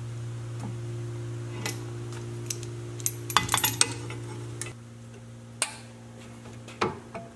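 Metal clinks and clatter as a steel flat bar is shifted on a cast-iron drill-press table and a locking C-clamp is set and clamped onto it, with a cluster of clicks around the middle. Under it runs a steady low hum that drops in level about two-thirds of the way through.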